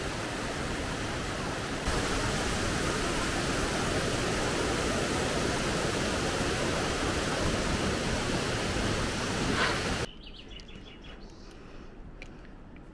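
Steady rushing of a mountain stream and waterfall, a little louder after about two seconds. Near the end it cuts off abruptly to a much quieter outdoor background with a few faint chirps.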